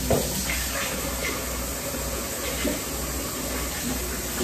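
Kitchen faucet running steadily, water pouring into the sink, with a brief knock right at the start.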